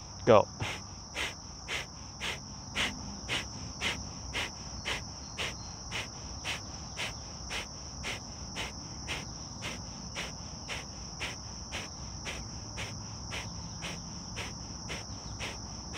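Kapalbhati fire breathing: a person's sharp, forceful exhales through the nose, about two a second, some thirty in a row, growing softer toward the end. A steady high insect trill runs behind them.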